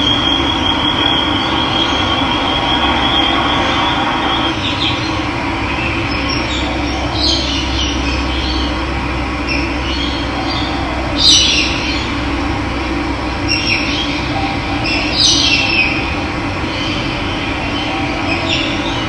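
Steady rush of running water, with a high pulsing trill in the first few seconds and several short bird calls over it.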